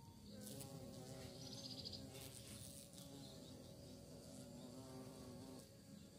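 A bee buzzing in flight close by: a faint, steady droning hum that wavers slightly in pitch, starting just after the beginning and stopping about half a second before the end.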